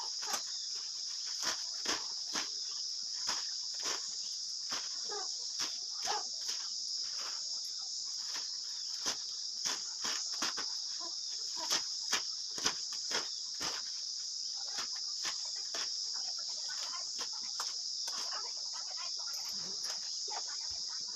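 Knife chopping a pile of mustard and colocasia leaves in a steel plate: short cuts and taps at about two a second, over a steady high chirring of crickets.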